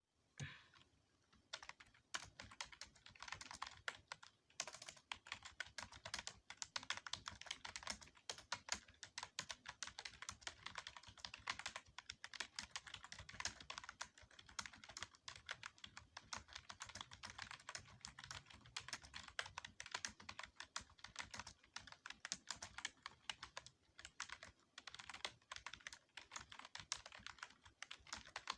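Continuous typing on a computer keyboard: fast, irregular keystroke clicks as a passage of text is typed, with a brief lull near the start.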